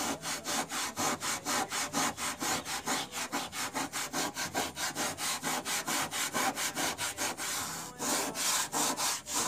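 Green Scotch-Brite scouring pad scrubbed rapidly back and forth over a rusted metal car fender wet with Coca-Cola, an even rasping at several strokes a second. Near the end the strokes briefly run together into one continuous scrub.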